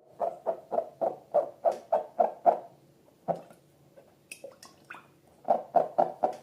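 Slime being squeezed and pressed by hand in a quick rhythm, a run of about nine wet squelches, one more, then a short lull with faint clicks, then four more squelches near the end.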